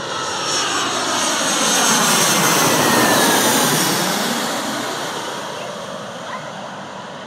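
Jet airliner on final approach with gear down, passing low overhead: the engines' noise swells to its loudest about three seconds in, then fades as the plane moves away, its pitch falling.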